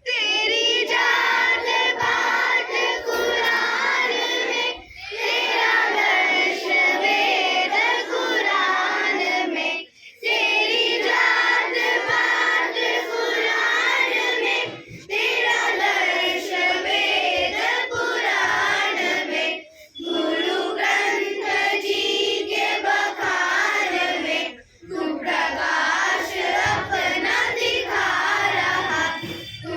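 A group of children singing a song together, the phrases broken by short pauses about every five seconds.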